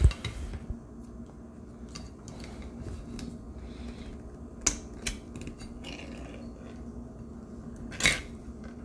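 Ring-pull lid of a sardine tin being peeled open by hand: scattered small metallic clicks and creaks as the tab is worked, then a louder crack about eight seconds in as the lid folds back.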